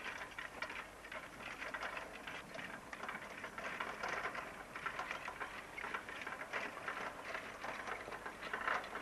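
A single horse trotting in harness and pulling a carriage over grass: an irregular patter of hoofbeats mixed with carriage rattle.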